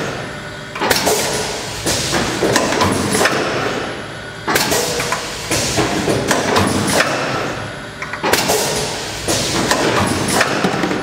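Mop-making machine working through its cycle: a run of mechanical clicks, knocks and clatter that repeats about every four seconds, with a short lull between cycles.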